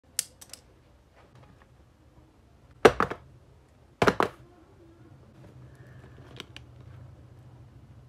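Small cardboard boxes of charging cables knocking down onto a stone countertop: a few light clicks, then two loud clusters of quick knocks about three and four seconds in, and faint clicks near the end.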